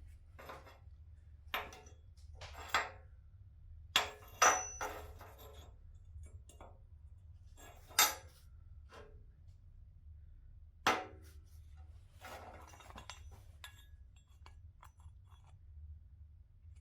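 Metal parts and tools being handled and set down: about half a dozen sharp clinks and knocks with brief ringing, between smaller taps, over a low steady hum.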